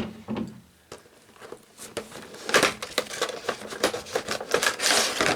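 Action figure's packaging being opened by hand: a sharp click at the start, then scattered clicks and dense crinkling and crackling from about two and a half seconds in.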